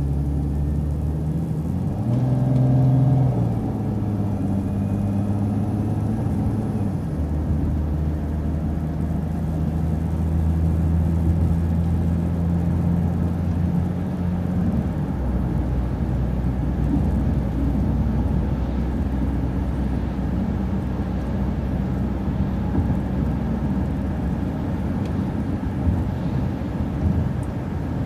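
City transit bus engine running with steady low road rumble as the bus moves, its engine note shifting pitch a few times.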